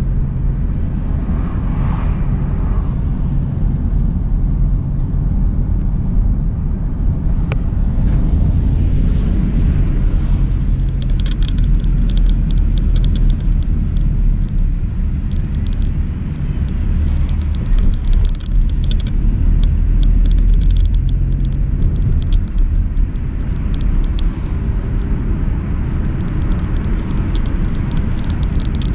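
Steady engine and road rumble heard from inside a moving car's cabin, with faint light clicks of a rattle from about the middle on.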